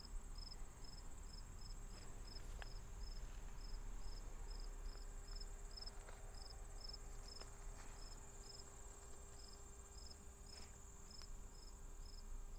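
Faint insect chorus: a steady high-pitched trill, with an insect chirping evenly about two to three times a second over it.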